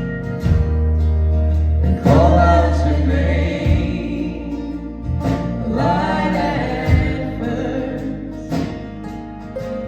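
Live band playing a song with sung vocals over the instruments; a deep low note is held for about three seconds near the start.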